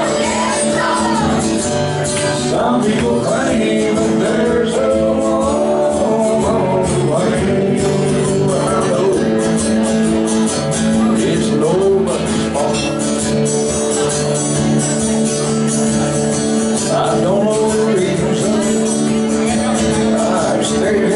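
Music with a voice singing over steady held notes.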